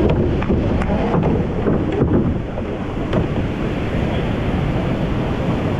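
Wind buffeting the microphone over breaking surf, with a few sharp knocks in the first few seconds, the oars knocking against the surf boat as the crew handles them.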